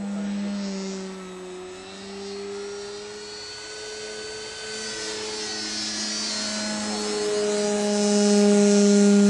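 Radio-controlled model airplane in flight, its motor and propeller droning with a pitch that wavers up and down, growing louder over the last few seconds as it comes closer.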